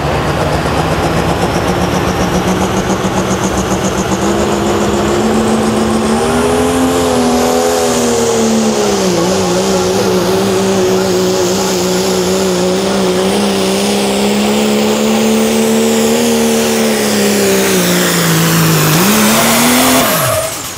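Turbocharged diesel pickup pulling a weight sled under full power. The engine note climbs and holds under heavy load, with a turbocharger whistle rising very high. The engine cuts off suddenly near the end, and the turbo whine winds down.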